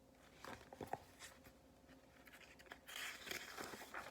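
Faint paper rustling and light taps of a picture book being handled, its page turned.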